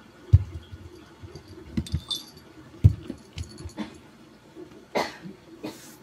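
Soft thuds of cats getting up and moving on a wooden floor, with a small collar bell jingling briefly about two seconds in and two short rustling swishes near the end.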